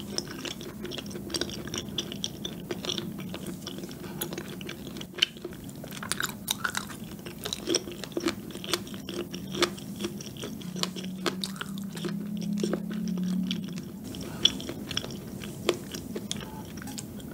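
Chewing of rose tteokbokki, chewy rice cakes and fish cake in a creamy sauce, with many short mouth clicks and smacks throughout. A low steady hum runs for a few seconds past the middle.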